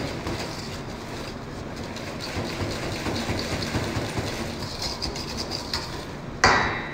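Metal whisk scraping and rattling against a stainless steel mixing bowl over a steady kitchen hum, with one loud metallic clank near the end.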